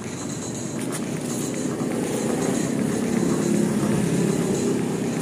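A motor vehicle's engine running steadily, growing louder over the first few seconds and then holding.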